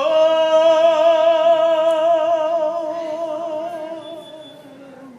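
A woman singing one long held note a cappella, with a wide, even vibrato; it swoops up into the note and slowly fades away near the end.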